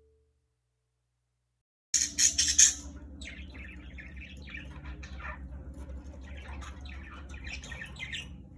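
Budgerigars chirping and chattering, with a few loud, sharp squawks where the sound starts suddenly about two seconds in.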